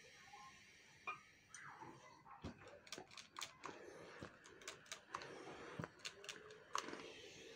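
Faint rustling of a headscarf being smoothed flat by hand, with a run of irregular light clicks and taps as a steam iron is handled and set down onto the lace edge of the fabric.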